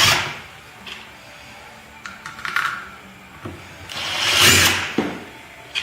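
Power drill running briefly, about a second and a half, swelling and falling away near the middle of the stretch, among scattered clicks and knocks of small parts being handled.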